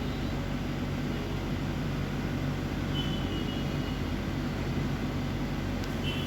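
Steady low mechanical hum, unchanging throughout, with a faint click near the end.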